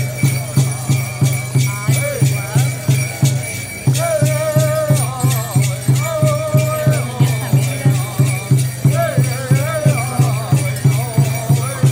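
Native American dance song: a hand drum beaten in a steady, even pulse about three to four times a second, with a voice chanting long held notes over it and the jingling of dancers' rattles and bells.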